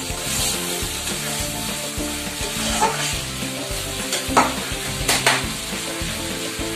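Eggplant curry sizzling in a kadai while a spatula stirs it and scrapes the pan, with a few sharp clacks of the spatula against the metal about three to five seconds in.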